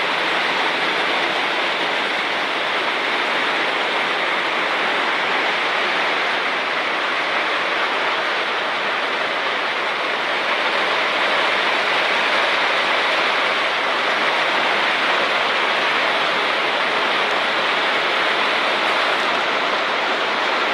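Torrential rain pouring straight down with no wind, a steady heavy hiss of a downpour as hard as the speaker has ever seen.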